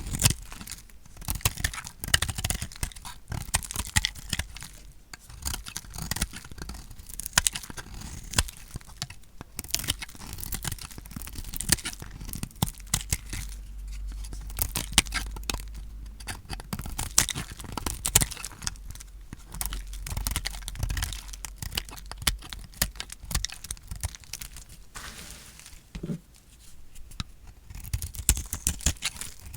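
A knife cutting through dry, painted bar soap: dense, crisp crackling and crunching as the blade passes through, with a short lull a few seconds before the end.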